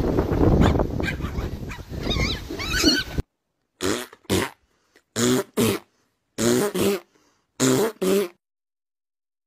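Small puppy giving short barks, mostly in quick pairs, with dead silence between them. Before that comes a short stretch of noisy outdoor sound with a dog's high yelps.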